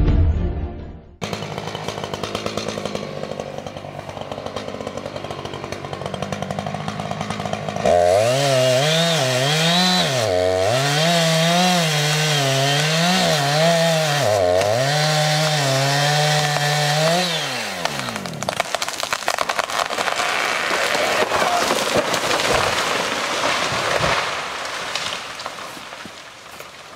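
Chainsaw cutting into a large tree: the engine's pitch dips and rises repeatedly as it works under load, then falls away about two thirds through.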